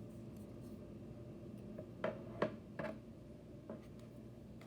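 A few light clicks and taps of small plastic miniature toy pieces being handled, over a steady low hum.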